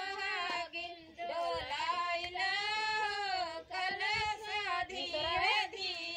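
Women singing a traditional folk wedding song with no instruments, in long, wavering held notes.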